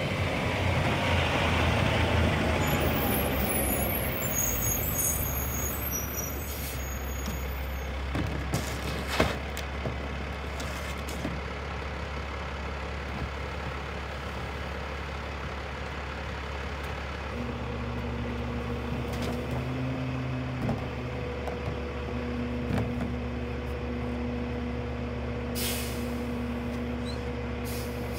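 Sterling rear-loader garbage truck stopping with a hiss of its air brakes, then idling with a steady low drone. About two-thirds through, the engine steps up to a higher steady drone with a whine as the packer runs. A few sharp knocks of carts against the hopper come through.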